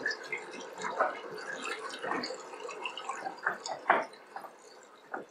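Water sound effect: irregular drips and plops, several a second, the loudest about four seconds in, growing sparser toward the end.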